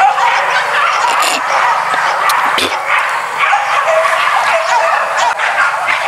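Hunting dogs barking and yelping, many short calls overlapping without a break.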